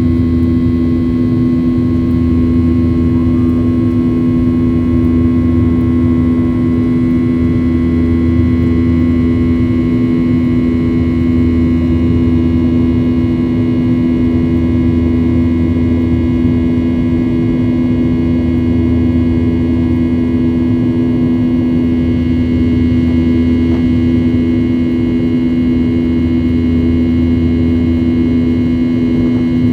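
Boeing 737 jet engines heard from inside the passenger cabin: a loud, steady drone made of several constant hums over a low rumble that swells and eases.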